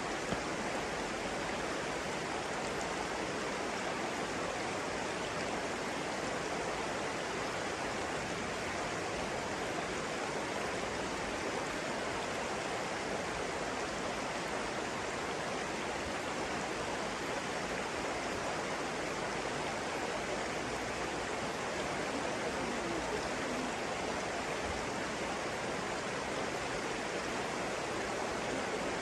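Flowing water rushing steadily without change, with no distinct bird calls standing out.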